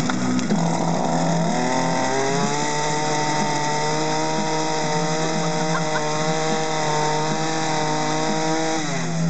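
Gas weed eater's two-stroke engine, rigged to drive a blender, catching on a pull-start and revving up over a couple of seconds. It then holds at a high, steady whine at full throttle, and drops back near the end.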